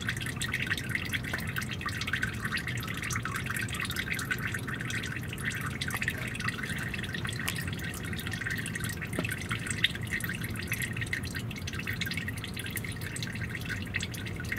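Used engine oil running from the drain hole of a Ford Excursion V10's oil pan in a thin stream into a drain pan, a steady trickle with a patter of drips. The stream has thinned, as it does near the end of draining.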